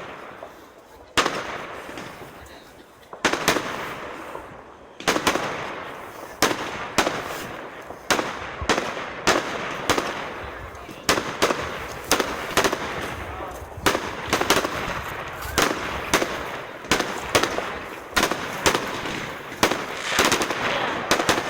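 Fireworks display: aerial shells bursting in sharp bangs, each trailing off over a second or so. The bangs are a few seconds apart at first and then come faster, about one a second or more, often in close pairs.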